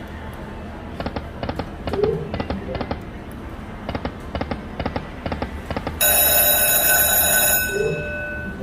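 Sahara Gold Lightning Link slot machine sounds. Quick clusters of electronic ticks come as the reels spin. About six seconds in, a loud, bright bell-like chime rings for about two seconds.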